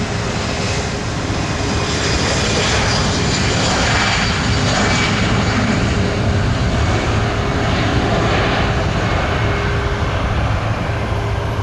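Boeing 767-300ER's twin Pratt & Whitney PW4060 turbofans running steadily at low thrust as the jet taxis, with a steady low hum and a faint high whine over the engine noise.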